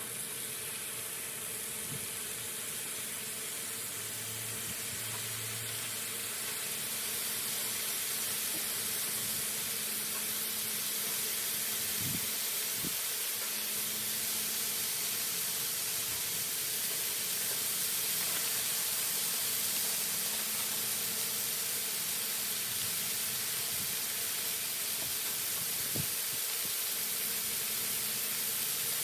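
Bacon frying on a propane flat-top griddle, a steady sizzle that grows a little louder over the first several seconds, with a few faint knocks.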